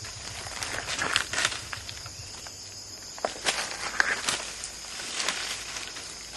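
Irregular crunching and rustling in dry leaf litter, over a steady high drone of insects.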